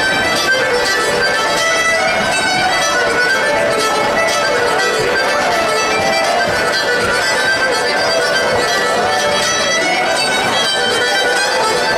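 Irish traditional instrumental tune played live on fiddle, accordion and acoustic guitar, with the fiddle carrying the melody.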